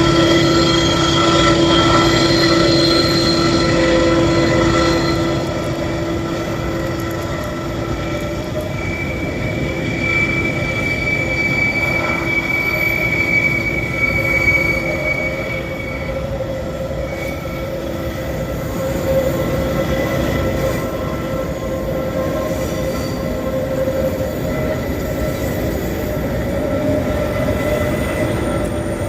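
Freight train climbing a mountain grade: a steady heavy rumble of rolling wagons with held, high wheel-squeal tones. It is loudest in the first five seconds, and a sharper squeal comes in from about nine to sixteen seconds in.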